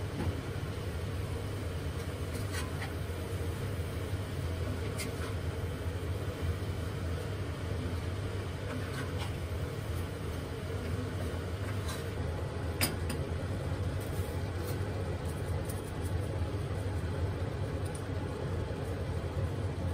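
Vegetables cooking in a cast-iron pot and being stirred with a wooden spatula: a few scattered light knocks and clinks over a steady low hum.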